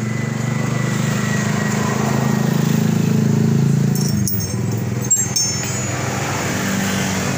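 Small motorcycle engine running steadily at low revs, with a few sharp metallic clicks about four to five seconds in.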